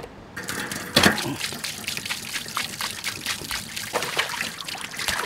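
Water trickling and splashing irregularly as raw pork is rinsed by hand in a basin, with a sharper splash about a second in.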